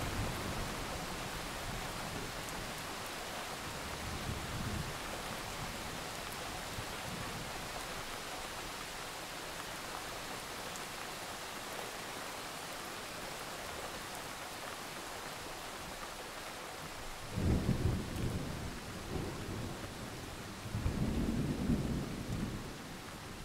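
Steady rain with low rolls of thunder, the loudest two coming about two-thirds of the way through and again near the end.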